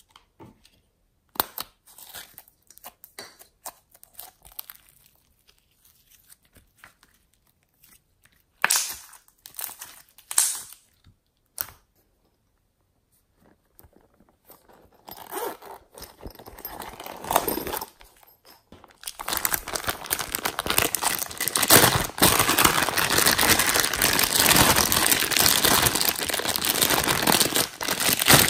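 Scattered small clicks and sticky crackles as slime tubs and pouches are handled. From about two-thirds of the way through, a thin plastic bag of slime is squeezed and handled, making a continuous loud crinkling.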